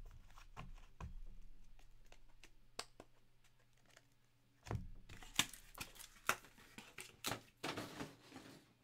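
Hands handling trading cards and their packaging on a tabletop: rustling and light clicks of card stock and plastic holders, thicker in the second half.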